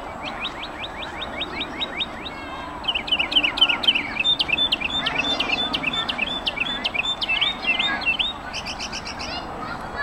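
Northern mockingbird singing a string of different phrases, each made of one note repeated quickly: about ten quick notes, then a long fast run of chirps that is the loudest part, then a few higher notes near the end.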